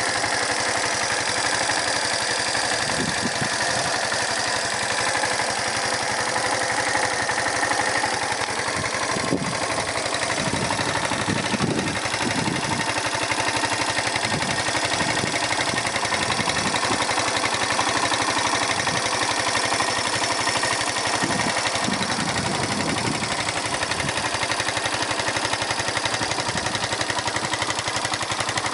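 Yamaha SR125's single-cylinder four-stroke engine idling steadily.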